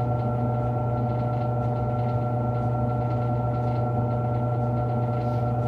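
A steady low electrical hum from a household appliance, with a few fainter higher tones above it, unchanging throughout.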